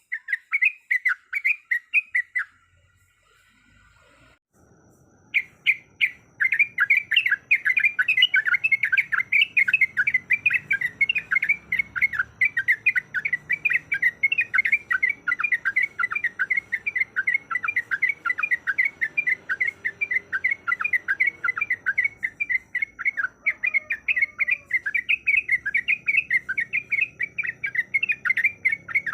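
Yellow-vented bulbul (trucuk) calling in a rapid, repeated chatter of short notes, about five a second; a short run at the start, a pause of a couple of seconds, then a long unbroken run over faint background noise.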